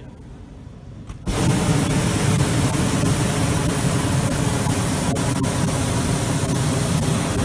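Hot-air balloon's propane burner firing in one long blast: a loud, steady rush of noise that starts abruptly about a second in and holds until the very end.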